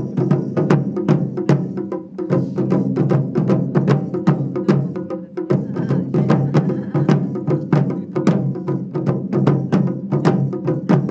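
Ensemble of Japanese taiko drums (nagado-daiko) struck with wooden bachi sticks in a fast, driving rhythm: dense, deep drum strokes mixed with sharp clicking strokes, dipping briefly about halfway through.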